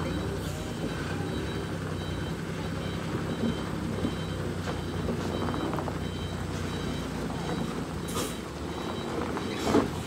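Heavy diesel truck engine running steadily, with a reversing alarm beeping about once a second. A short hiss comes about eight seconds in, and a sharp knock near the end.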